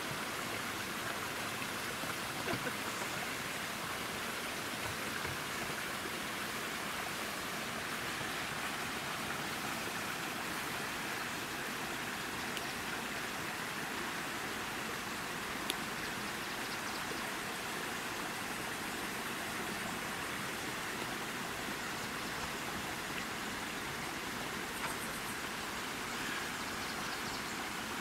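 Steady outdoor background hiss, even in level throughout, with a few faint, brief clicks.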